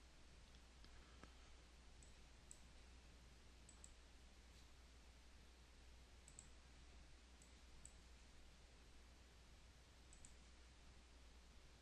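Near silence: a faint low steady hum with about eight soft, sharp computer mouse clicks scattered through.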